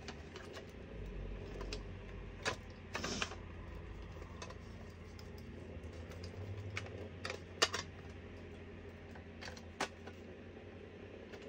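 Scattered light clicks and taps of small craft items being handled on a table, over a steady low hum.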